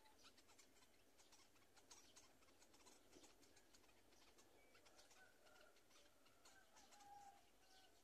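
Near silence, with faint scattered ticking and a few faint short bird calls in the second half.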